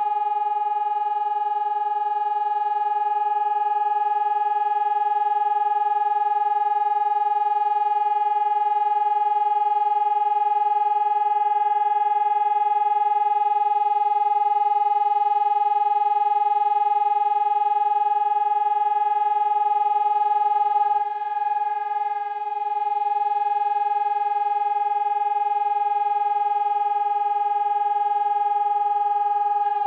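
Pavian electronic warning siren holding one steady, unwavering tone rich in overtones. This is the continuous-tone signal of a siren test. It dips slightly in loudness a little past the middle.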